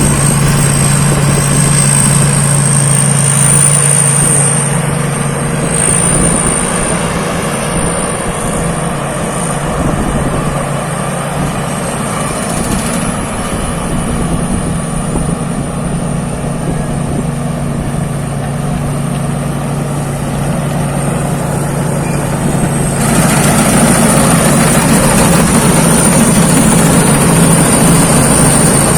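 Rice combine harvester's engine running steadily under load, with a thin high whine over the low hum. It drops a little about six seconds in and gets louder again about two-thirds of the way through.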